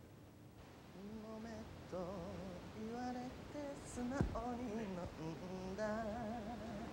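A solo voice singing a slow tune with a wide vibrato, starting about a second in, with a short sharp sound near the middle.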